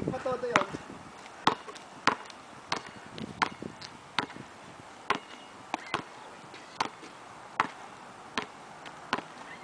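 Basketball dribbled on an asphalt court: a steady run of single bounces, about one every three-quarters of a second.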